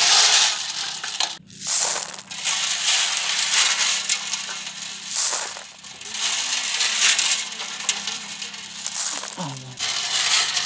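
Handfuls of tiny snail shells rubbed and churned together in an aluminium basin of water, clattering and grinding with some splashing, in repeated scrubbing strokes. The snails are being scrubbed clean.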